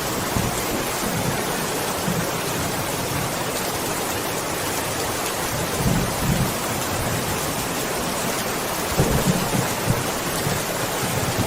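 Steady rain, with rolls of thunder about six seconds in and again around nine to ten seconds.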